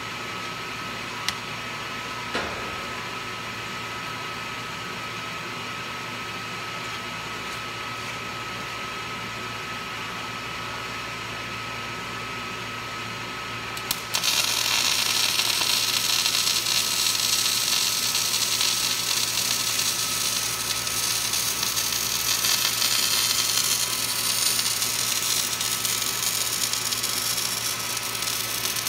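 Steady hum with two short clicks early on; about halfway through, an electric welding arc strikes and runs on as a loud, steady crackling hiss while a steel post is welded in one continuous pass.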